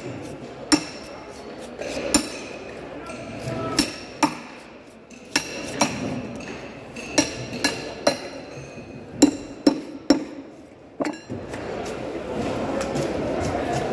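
Heavy knife chopping crosswise through a large fish's body and backbone onto a wooden cutting board, cutting it into steaks: about a dozen sharp, irregular knocks, some with a brief metallic ring.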